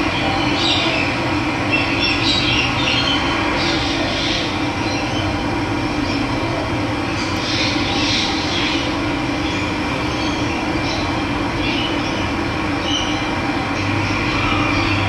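Steady rushing of running water, with birds chirping now and then above it.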